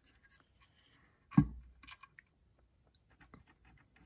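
Handling noise from a bookshelf speaker's woofer being lifted out of its cabinet and its wire leads worked at the terminals. A single knock comes about a second and a half in, a sharper click soon after, then a scatter of small clicks near the end.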